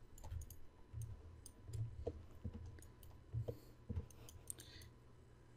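Faint computer mouse clicks, a dozen or so scattered irregularly over a few seconds, some with soft low thumps.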